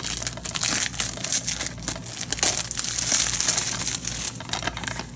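Clear plastic shrink wrap crinkling as it is peeled off and handled on a DVD case, a dense run of crackles that is busiest around three seconds in and dies down near the end.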